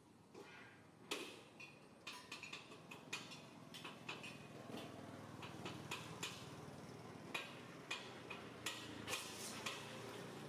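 Faint, irregular clicks and ticks, a dozen or more spread unevenly, some with a short high chirp-like edge, over a quiet steady background.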